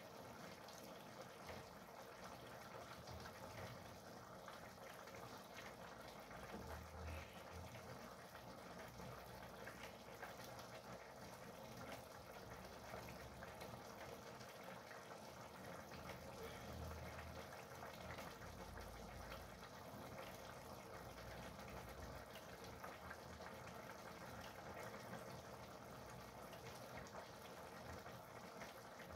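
Stew and greens simmering in pans on a gas stove: a faint, steady bubbling hiss.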